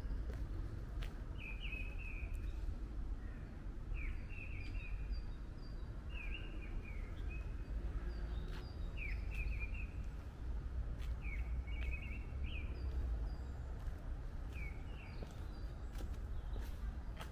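A songbird singing short, twittering phrases, one every second or two, over a steady low rumble.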